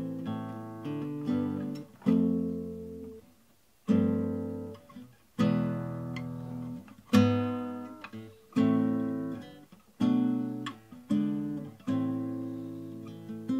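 Classical guitar played slowly, one strummed chord at a time, each left to ring and fade before the next. The chords come about every second and a half.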